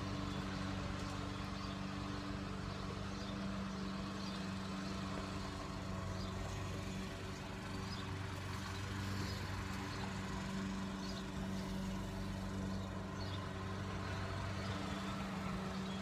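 Steady low mechanical drone of a running machine, holding one pitch without change, with a few faint high ticks over it.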